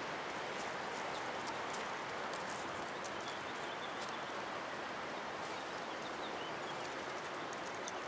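Strong 50–60 mph wind blowing through bare treetops, a steady rush with scattered light ticks.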